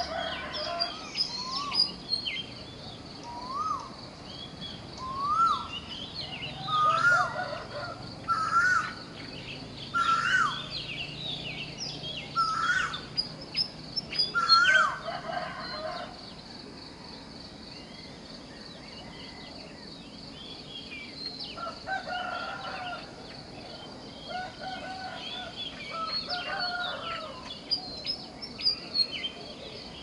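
Dawn birdsong in the countryside: many birds chirping and calling, with a run of short rising calls in the first half, and chickens crowing in the background.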